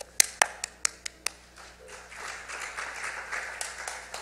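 A handful of sharp, loud claps in the first second or so, then light applause from a seated congregation, starting about two seconds in.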